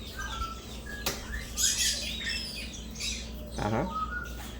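Eclectus parrot calling: a few short whistled notes, then harsh squawks about a second and a half in. There is a sharp click about a second in.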